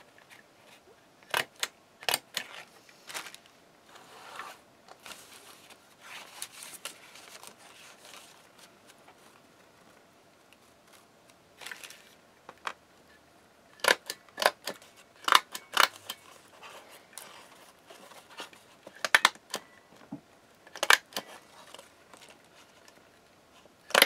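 Stapler driving staples through paper and card: sharp clacks in three bursts, about a second in, around the middle and near the end, with paper rustling between.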